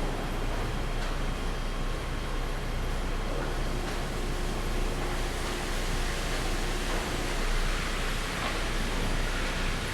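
Sawmill machinery running steadily: a low motor hum under an even hiss.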